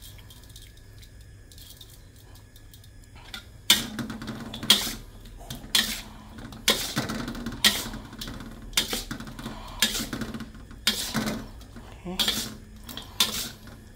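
Metal spatula clanking and scraping against a stainless steel wok as sauced chicken is tossed to coat it. The first few seconds are quiet, then the clanks come about once a second.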